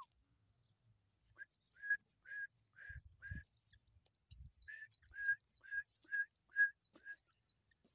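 Grey francolin giving a series of short, clear whistled notes, about two a second, starting a second and a half in and pausing briefly midway.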